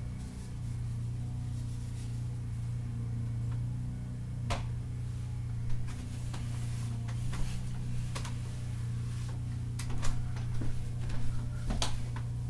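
Light clicks and taps of small items being picked up and put down on a wooden chest of drawers. The clicks come scattered at first and grow more frequent near the end, over a steady low hum.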